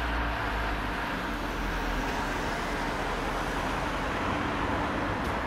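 Steady background hum of distant road traffic, even and unbroken, with a low rumble underneath.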